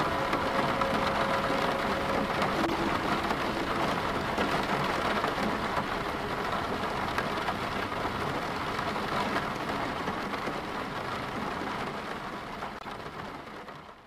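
Rain falling on a car's roof and windows, heard from inside the cabin as a steady patter that fades out near the end.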